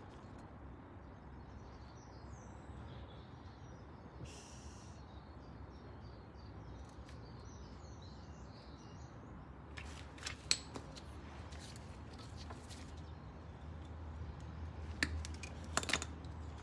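Quiet soldering work on car wiring: a few sharp clicks and small handling rustles, most of them around ten to thirteen and fifteen to sixteen seconds in, over a low steady hum. Faint bird chirps sound in the background during the first half.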